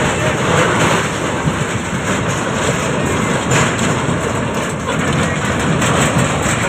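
Flash-flood torrent rushing past: a loud, steady roar of churning floodwater.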